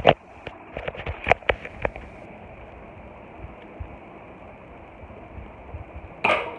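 Nerf Zombie Strike Nanofire dart pistol firing with a sharp pop, followed by a few lighter clicks and knocks over the next two seconds. Another loud sound comes near the end.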